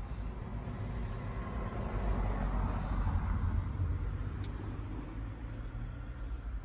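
Road traffic: a vehicle passing by, its rumble swelling to a peak and fading away, with a single light click partway through.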